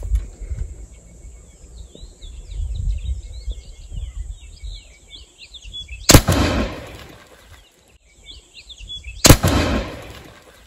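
Two loud shots about three seconds apart from a homemade percussion-cap muzzle-loading 12-bore shotgun firing pellets, each fading out over about a second. Birds chirp faintly in between.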